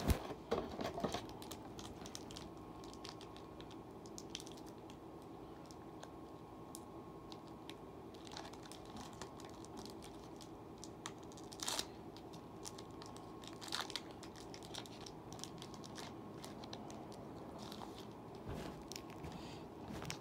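Foil Yu-Gi-Oh mega pack wrappers faintly crinkling and tearing as they are handled and opened, with scattered crackles and a few sharper ones around the middle.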